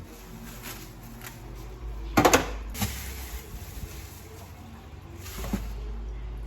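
Kitchen handling noises: a short burst of sharp knocks and rattles about two seconds in, one more knock just after, and a softer knock near the end, over a low steady hum.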